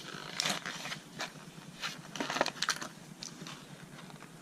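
Packaging being handled and opened: irregular crinkling, crackling and sharp clicks of plastic and card, with no steady rhythm.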